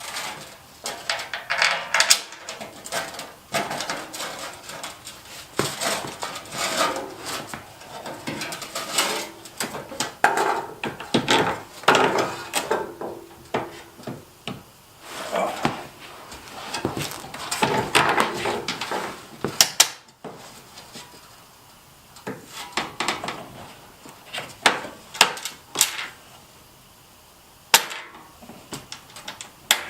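Irregular knocking, scraping and rattling as a plastic front splitter is handled and pushed up against a car's front bumper while being fitted, with several sharp knocks.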